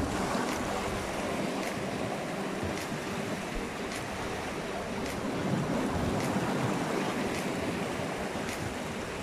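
Sea surf washing and churning against a coral rock shore: a steady rush of water.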